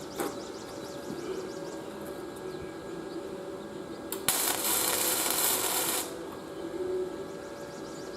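Reciprocating saw (Sawzall) cutting steel exhaust tubing in one loud burst of about two seconds, starting and stopping abruptly about halfway through, over a faint steady hum.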